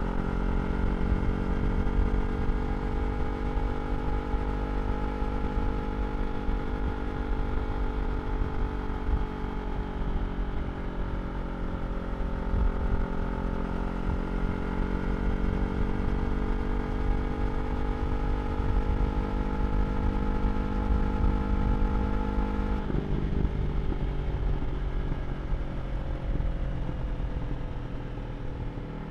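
2023 Yamaha R3's parallel-twin engine running through an Akrapovič slip-on exhaust at fairly steady revs, with low wind rush. The revs drift gently, then drop suddenly about 23 seconds in.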